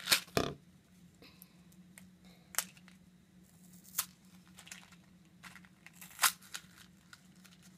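A clear plastic bowl clatters onto a tabletop twice in quick succession at the start. Then a small cardboard Nerds candy box is torn open and handled, with a few scattered sharp clicks and crinkles over a faint steady hum.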